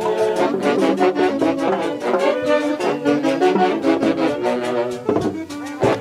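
A huaylas tune played by a wind band with saxophones and brass, with a steady beat; the playing eases briefly about five seconds in.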